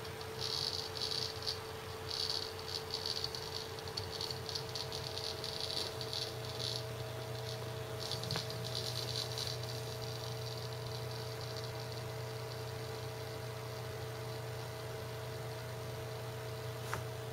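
Seagate ST6000DX000 6TB 7200 RPM hard drive seeking loudly in rapid chattering bursts during a random-read benchmark. The loud seek mode is set off by small side-to-side angle changes and vibration of its enclosure. The seeking dies away about nine seconds in, leaving a steady hum.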